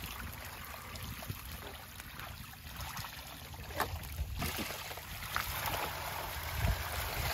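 Water trickling and sloshing in a fine-mesh fishing net as the net is handled in shallow water, over a low rumble, with a few faint knocks.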